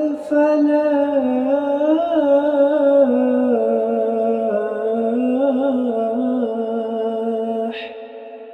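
A male muezzin singing the adhan into a microphone. He holds one long ornamented phrase of "hayya 'ala l-falah" with a wavering pitch and a short breath just after the start. Near the end the line closes and fades into a quieter echoing tail.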